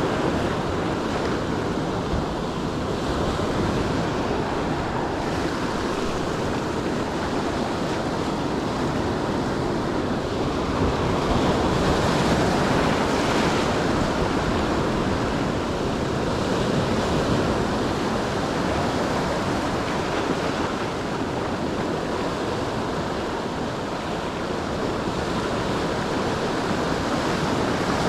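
Ocean surf washing onto the shore in a steady rush that swells a little about halfway through, with wind buffeting the microphone.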